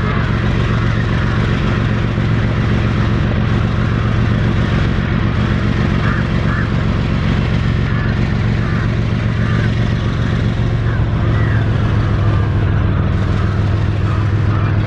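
WDG4G diesel-electric freight locomotive's GE GEVO V12 diesel engine running steadily with a low drone as it hauls a long freight train, growing a little louder in the last few seconds as it nears.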